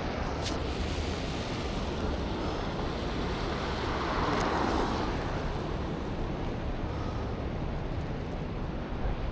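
Steady wind and city traffic noise in a snowstorm, swelling as a vehicle passes about four to five seconds in.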